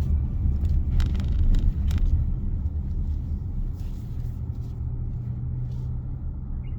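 A car driving, with a steady low rumble from the road and engine, and a few light knocks about one to two seconds in.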